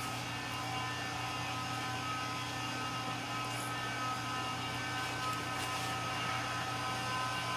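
Steady electrical hum with a low drone and several thin steady tones above it, unchanging throughout.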